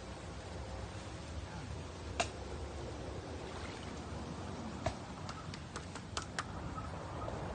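One sharp click about two seconds in, then a quick run of about eight sharp clicks in the second half, over a steady low rumble.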